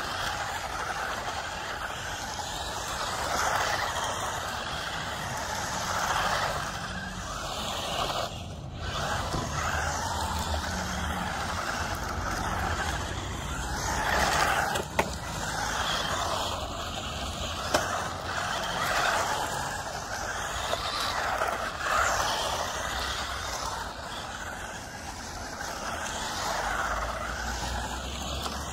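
Small 1/16-scale electric RC cars on road tyres driving on asphalt: a whirring hiss of motors and tyres that swells and fades as they accelerate and turn. Two sharp clicks come in the second half.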